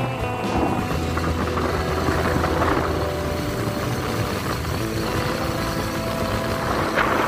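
Motorcycle engine running steadily while riding, with a brief louder rush of noise near the end.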